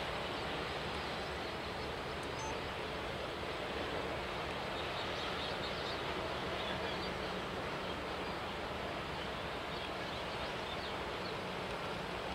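Steady outdoor background noise: an even hiss with a low rumble underneath and no distinct event.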